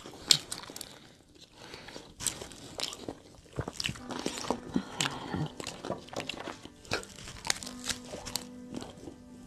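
Close-up crunching and chewing of fried chicken: many sharp, irregular crunches and wet mouth sounds, with soft background music holding a few sustained notes in the second half.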